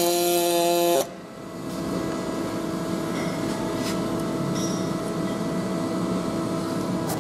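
Pulse MIG welder arc on aluminum with straight argon, a steady pitched buzz with many overtones, cutting off abruptly about a second in as the trigger is released. A steady background hum and hiss continues afterwards.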